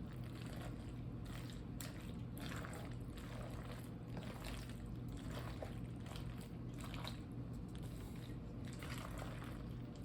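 Spoon mixing mayonnaise through cooked elbow macaroni in a bowl: soft, wet squishing strokes, one after another. A steady low hum runs underneath.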